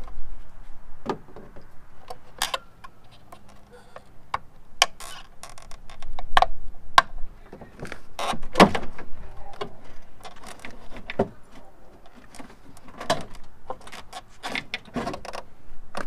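Plastic bumper-cover clips and trim being pried with a plastic trim tool: irregular clicks, knocks and sharper snaps as the fascia is worked loose.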